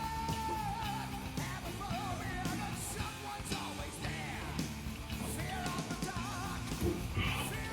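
Background rock music with a singing voice over a steady beat.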